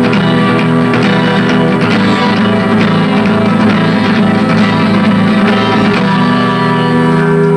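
Instrumental close of an acoustic-version rock song: guitars strumming, then settling into a held final chord about six seconds in.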